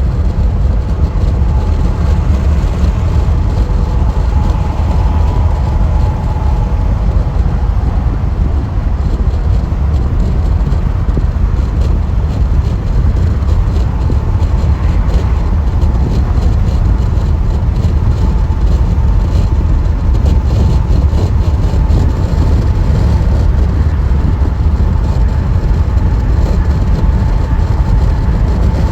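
Car driving on freeway pavement: steady, loud tyre and road noise with a heavy rumble and a faint whine that fades in and out.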